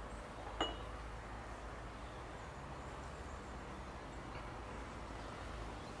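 A hanging metal seed feeder clinking once, sharply, with a brief ring, over steady outdoor background noise.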